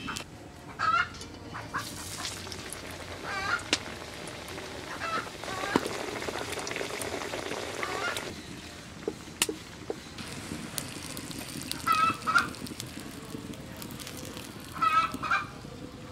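Chickens clucking and calling several times, over hot oil sizzling in a kadai as a stuffed Mughlai paratha deep-fries; the sizzle drops away about eight seconds in.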